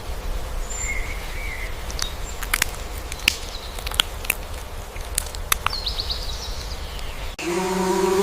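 Outdoor ambience with scattered sharp clicks and a few short, high chirps. Near the end it cuts abruptly to a louder, low-pitched steady call.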